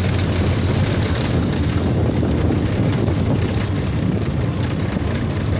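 A small roller coaster train running along its steel track: a steady rumble with a rush of air as the car moves.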